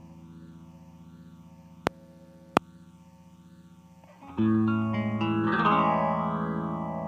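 Electric guitar played through an effects unit: a chord dies away with a slow, even wavering, a few sharp clicks sound, then a new chord is struck about four seconds in and rings out with the same wavering.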